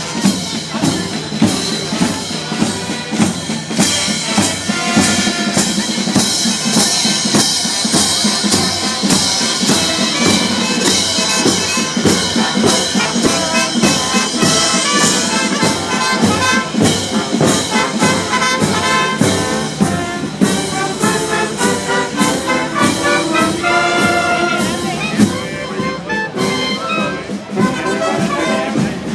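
Marching band playing in the street: brass instruments carrying the tune over a steady drum beat.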